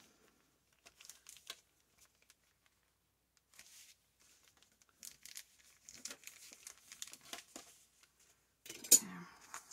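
Quiet scraping and rustling of a bone folder rubbed along a paper bag's fold to set a firm crease, with soft paper handling. A single sharp tap comes near the end.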